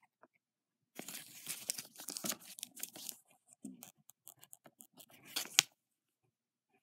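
A folded paper coupon handled and opened by hand: irregular rustling and crinkling of the paper, with a sharp paper snap near the end.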